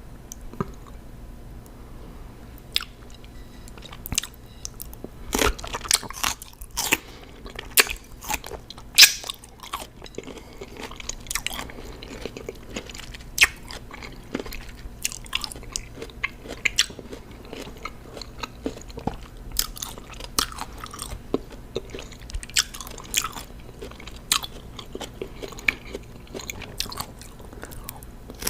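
Close-miked biting and chewing of crunchy raw cucumber: irregular wet crunches and crackles, with louder bites scattered through.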